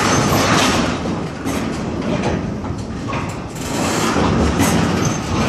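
Freight train of tank cars creeping along jointed track at near walking pace, almost stopping: a steady heavy rumble with creaking and several sharp knocks as the slack runs in and out between the couplers.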